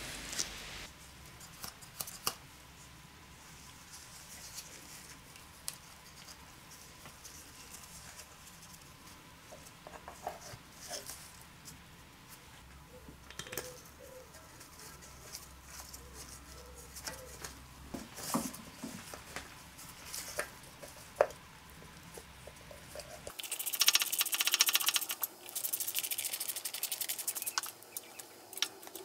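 Hand work on a Briggs & Stratton lawn-mower engine: scattered light clicks and taps as the valve cover is handled and set in place. Near the end comes about five seconds of rapid ratchet clicking as its bolts are run down.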